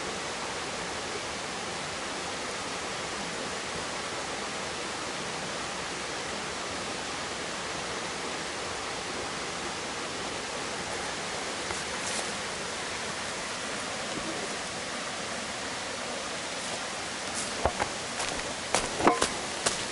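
Steady, even rushing noise outdoors, then a few footsteps near the end, sharp clicks and knocks on the path.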